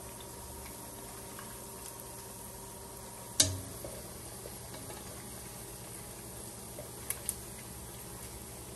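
Hot frying oil sizzling faintly and steadily in a pot after pork chops are lifted out. One sharp knock about a third of the way in, then two light clicks a second apart near the end.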